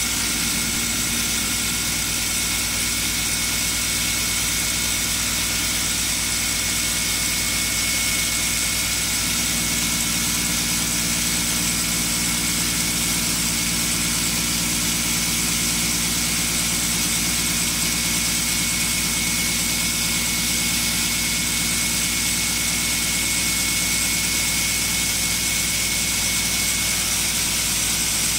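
CNC wood lathe running and turning a spinning wooden stick, its cutter taking off shavings. The machine gives a steady noise with a constant high whine.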